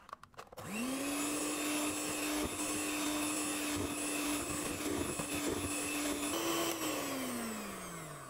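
Electric hand mixer switched on after a few clicks, its motor whining at a steady pitch as the beaters whip thick sponge-cake batter to blend in drops of yellow food colouring. Near the end it is switched off and winds down, the whine falling in pitch.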